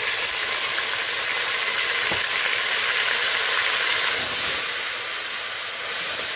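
Blended tomato sizzling loudly in hot oil with fried onions, stirred with a wooden spoon in a metal pot. A single soft knock comes about two seconds in.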